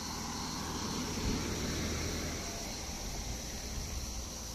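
A BMW sedan driving past on the road, its engine and tyre noise swelling to its loudest a second or two in, then fading away. A steady high insect chorus runs underneath.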